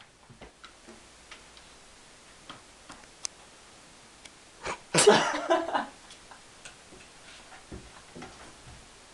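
A cat moving about on a wooden wall unit: scattered light, irregular clicks and taps from its paws and claws on the wood, and one louder, noisier scuffle about five seconds in that lasts about a second.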